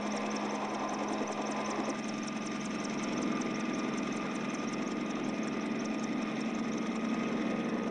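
Helicopter running steadily: a constant engine hum with the even, fast beat of the rotor.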